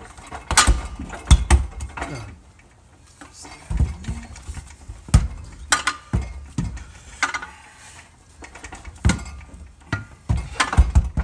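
Irregular metallic clanks and knocks from a 1983 Mazda RX-7's five-speed manual transmission as it is rocked and pushed, not yet seated, while being lined up with the engine.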